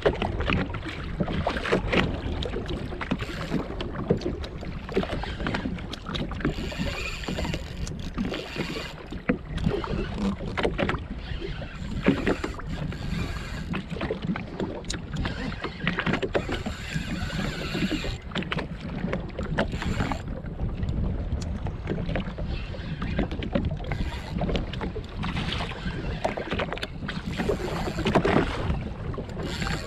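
Wind buffeting the microphone and small waves slapping against the hull of a drifting jetski: a steady low rumble with frequent short knocks.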